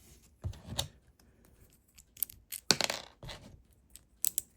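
Small plastic Lego pieces clicking and rattling as they are picked out and handled, in a few short scattered clicks and brief clattering bursts, the loudest a little under three seconds in.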